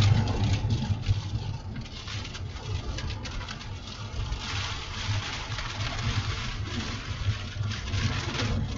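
A car driving slowly on a slick dirt road, heard from inside the cabin: a steady low engine and road drone with scattered light ticks.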